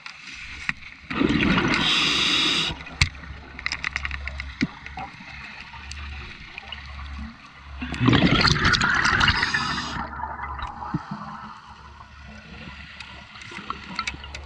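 Scuba diver breathing through a regulator underwater: two loud bursts of exhaled bubbles, about a second in and about eight seconds in, each lasting a second or two, with scattered small clicks between.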